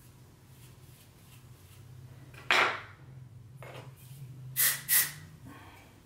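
Faint rustling of hair being combed and handled over a low steady hum, broken by a few short, sharp noises: a loud one about two and a half seconds in, a softer one a second later, and two close together near the end.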